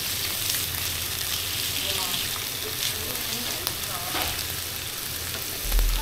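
Swordtip squid sizzling steadily on a hot griddle while a metal spatula presses and scrapes against the plate, with a low thump near the end.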